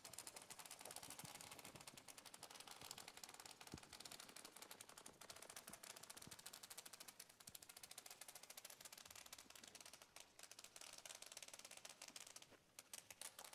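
Near silence: a faint, fast crackling hiss.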